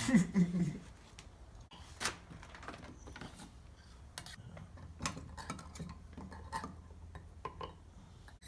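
Scattered small metal clicks, clinks and knocks of tools and pipe fittings being handled during plumbing work, with a short louder clatter right at the start.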